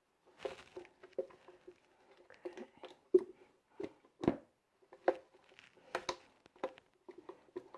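A blended mixture of dates, non-dairy milk and vanilla being emptied from a blender jar into a bowl of dry ingredients: irregular soft squishes and scrapes with sharp knocks, the loudest about three and four seconds in.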